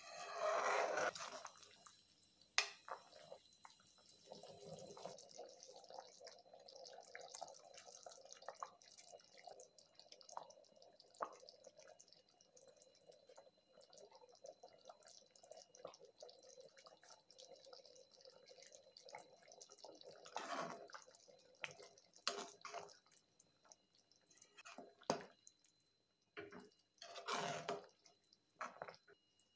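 Salan gravy bubbling as it simmers in a pan, with a spoon stirring and scraping through it in the first second or two and again several times in the last third.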